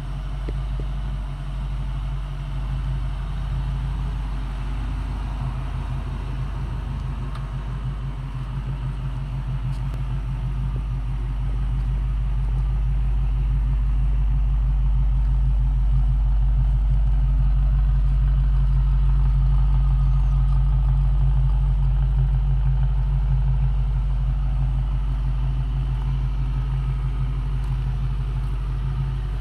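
1965 Ford Mustang's 289 V8 idling steadily with a deep, even rumble, louder for a while in the middle as the exhaust comes closer.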